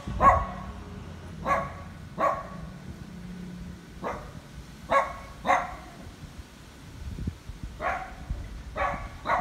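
A dog barking repeatedly: about nine single, sharp barks at irregular spacing, with a longer pause just past the middle.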